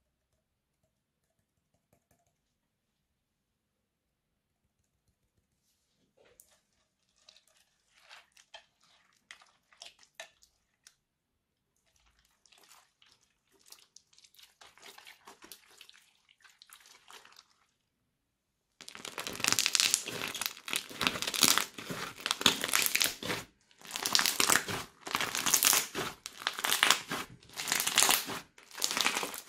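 Crunchy slime packed with foam beads being kneaded, stretched and squeezed by hand, giving a dense crinkly crackling and crunching. Silent at first, then faint crackling, then much louder in repeated squeezes from about two-thirds of the way in.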